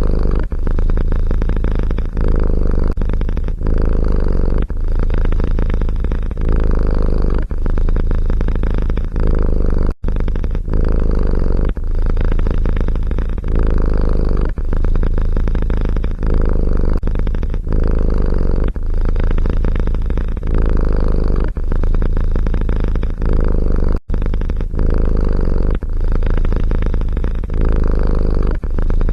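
Domestic cat purring close up: a loud, steady low rumble that swells and eases about every second and a half with its breathing, broken by two sudden brief dropouts.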